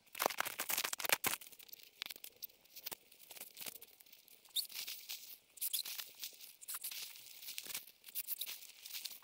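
Crinkly rustling and crackling of nylon as an inflatable sleeping pad is unrolled and handled on a tent floor: irregular soft crackles with no steady sound under them.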